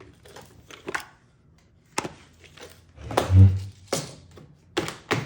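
Irregular knocks and clacks of small parts and objects being handled on a workbench, with a heavier, deeper thump about three seconds in.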